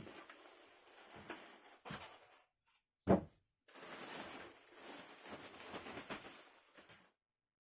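A PC case being handled: rustling and scraping, with one dull thump about three seconds in.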